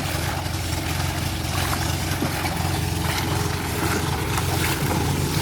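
A steady low mechanical hum, like an engine or motor running, with a steady hiss over it.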